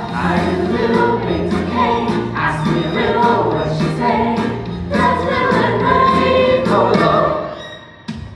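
Several young voices singing a show tune together with musical accompaniment; the music dies away about seven and a half seconds in.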